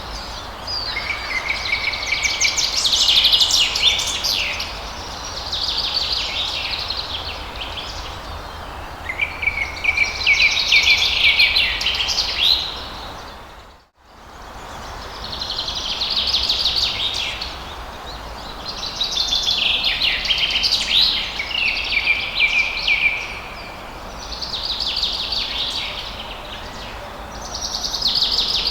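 Songbirds singing in repeated phrases of two or three seconds each, quick trilled notes over a steady rush of falling water. About halfway through, everything dips briefly to silence and comes back.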